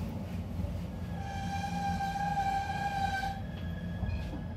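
Interior running sound of a JR Kyushu 813 series electric train car nearing a station: a steady low rumble, with a strong steady tone held for about two seconds that then gives way to a fainter, higher steady tone.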